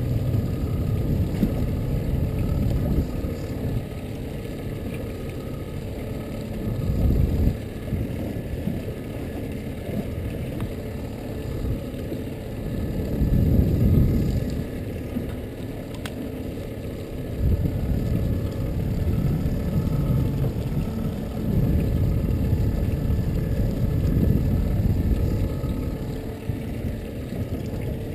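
A small fishing boat's motor running steadily in the background, with wind buffeting the microphone in gusts that swell and fade every few seconds.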